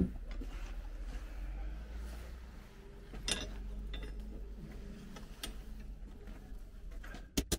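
A few light metal knocks and clinks as a steel horseshoe is set and clamped in a bench vise, over a steady low hum. There is one clearer knock about three seconds in and a quick run of sharp clicks near the end.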